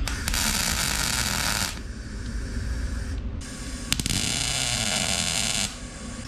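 Wire-feed welder arc crackling and sizzling in two runs, about a second and a half and then about two seconds, tack-welding steel cart tubing. A low hum sits underneath throughout.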